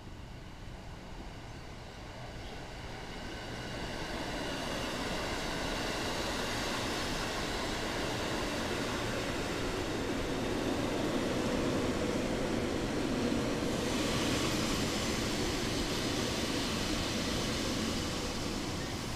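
Ex-JR East 205 series electric multiple-unit train approaching and running along the platform: the rumble of its wheels on the rails grows steadily louder through the first half and stays loud, with a hiss coming in higher up about two-thirds of the way through.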